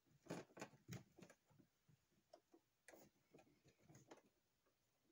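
Faint, irregular clicking, about a dozen soft clicks, as buttons are pressed to flip a TV through its channels.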